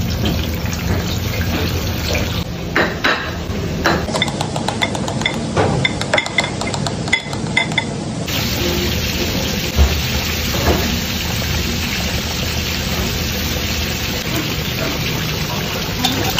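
Breaded fish frying in a wide pan of hot oil, a steady sizzle. For a few seconds in the middle, clinks and knocks of plates and utensils take over.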